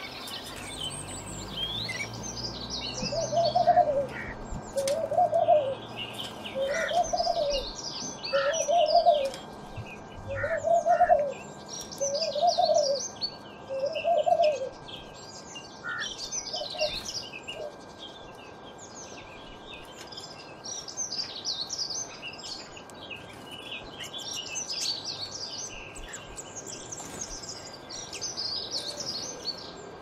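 Caged canaries chirping and twittering in short, high phrases. During the first half, seven low coos come at an even spacing of a little under two seconds, then stop.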